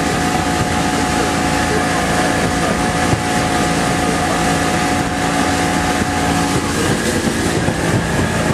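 Fishing boat's motor running steadily with the boat under way, with wind buffeting the microphone.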